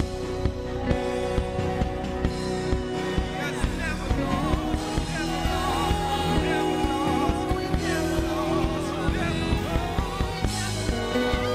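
Church worship band playing a worship song: singers with keyboard and bass guitar over a steady beat.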